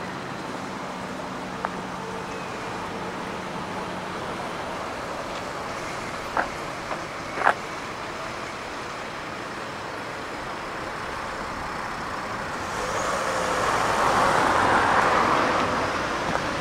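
Steady road-traffic noise, with a couple of sharp clicks around the middle and a swell of noise lasting a few seconds near the end.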